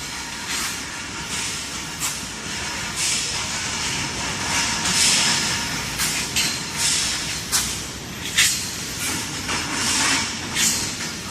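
Industrial tube-making machinery running with a steady low rumble, overlaid by repeated sharp hisses, about one or two a second and irregular in spacing.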